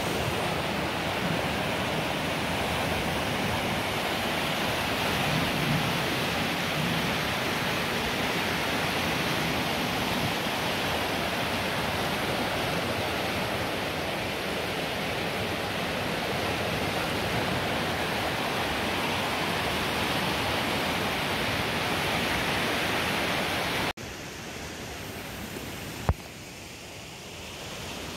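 Swollen River Wharfe rushing steadily over rapids, a loud hiss of white water. About four seconds before the end it drops abruptly to a quieter, more distant rush, with one brief knock shortly after.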